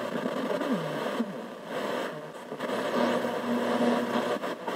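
Single-tube 6BZ6 superregenerative FM receiver's audio output: a steady rushing hiss with brief snatches of broadcast station sound coming and going as the dial is turned.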